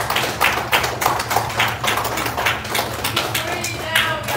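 Congregation applauding: many hands clapping in dense, irregular claps that thin out near the end.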